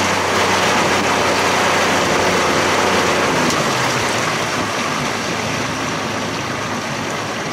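Outboard motor running at low speed as the boat moves slowly, with a steady hiss of wind and water over a faint low hum, getting slightly quieter toward the end.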